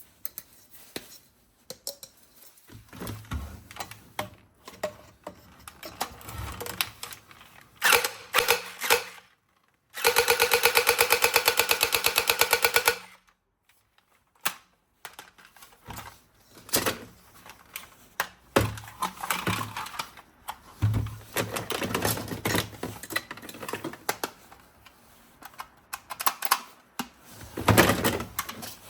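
Plastic clicks and clacks as a toy gun is handled and worked. About ten seconds in there is a loud, rapid burst of fire lasting about three seconds.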